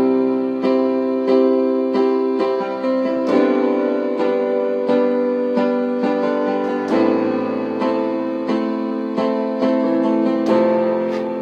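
Instrumental song intro on piano, chords struck in an even rhythm about once every two-thirds of a second.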